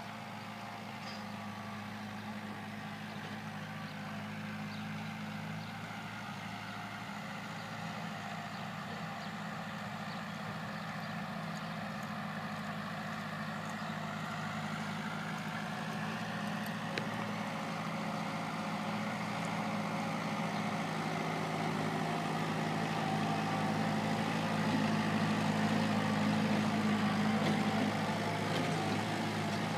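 A steady engine hum, slowly growing louder.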